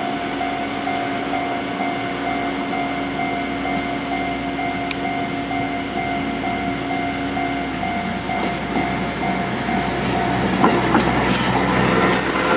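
Japanese level crossing alarm ringing in a steady repeating ding-ding as a JR Central KiHa 11 diesel railcar comes up to the crossing. From about ten seconds in, the train's wheels click over the rail joints and the railcar grows louder.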